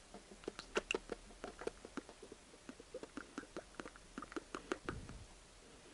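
Honda HMMF CVT fluid pouring from a metal can into a plastic funnel to refill the transmission: a quiet run of small, irregular clicks and pops, several a second.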